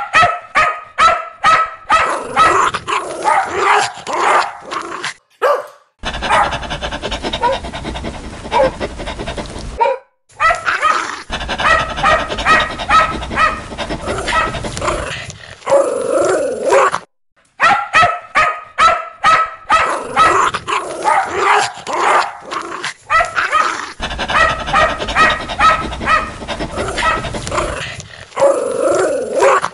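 A dog barking fiercely in fast runs of loud barks, broken by short pauses about ten and seventeen seconds in.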